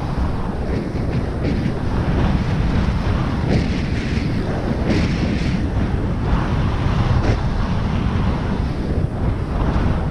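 Airflow wind buffeting the microphone of a harness-mounted camera during a low paraglider glide: a loud, steady rumble with gusty surges.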